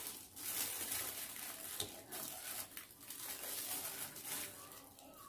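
Faint rustling and soft handling noises from plastic-gloved hands laying vegetable strips onto a rice-covered sheet of seaweed for kimbap, with a light click about two seconds in.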